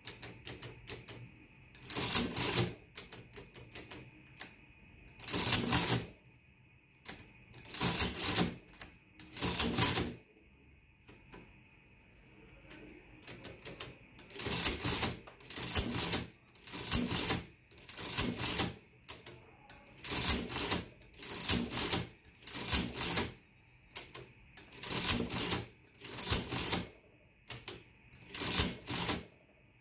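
1953 Olivetti Summa 15 manual adding machine running without its casing, worked by hand: the number keys click sharply, and each stroke of the operating lever drives a loud clattering cycle of the bare gears and print mechanism, about half a second to a second long. The cycles come one after another through a subtraction and then a multiplication done by repeated cycles.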